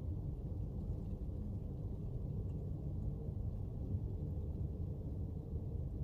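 Steady low background rumble with no distinct sounds on top of it.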